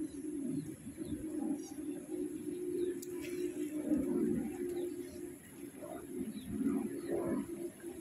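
Low cooing bird calls over a steady low hum, with a few short, faint high chirps from small birds.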